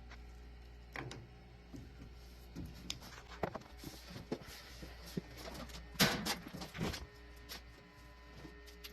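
Scattered clicks, knocks and rattles of hands and tools working on an air-conditioning unit, loudest in a cluster about six seconds in, over a steady low hum.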